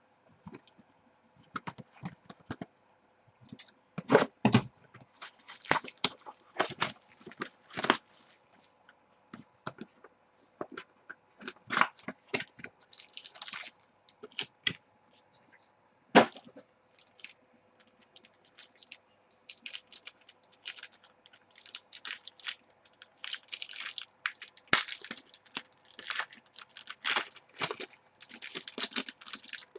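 Trading cards and their packaging being handled: irregular clicks, taps and crinkles of card stock and plastic wrapping, busier over the last third.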